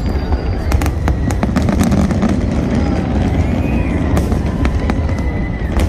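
Large aerial fireworks display: a continuous low rumble of booming shell bursts overlaid with many sharp cracks and crackles.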